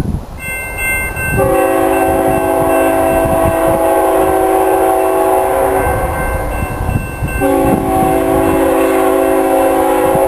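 Multi-chime air horn of an approaching CSX freight locomotive sounding two long blasts, the first about four seconds long and the second starting about a second and a half later. Gusts of wind rumble on the microphone underneath.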